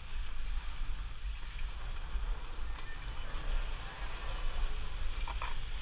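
Wind buffeting an action camera's microphone: an unsteady low rumble over a steady hiss, with a brief faint tone about five seconds in.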